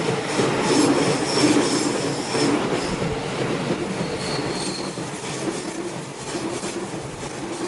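Electric train running through a canted curve, wheels clattering over the rail joints with high flange squeal from the wheels on the curve. The squeal comes in the first half and again briefly about four seconds in, and the train grows gradually quieter.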